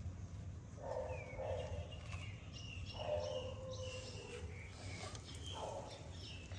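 Animal calls in three short bouts, with thin high bird chirps between them, over a steady low hum.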